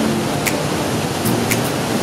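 Sopheakmit Falls, wide cascades of Mekong rapids over rock: a loud, steady rush of white water, with a faint tick about once a second.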